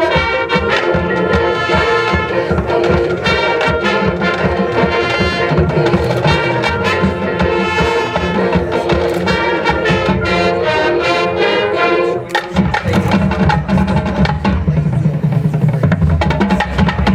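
High school marching band playing its field show: brass sustaining chords over drumline percussion. About twelve seconds in the music dips briefly and a heavier, lower passage begins.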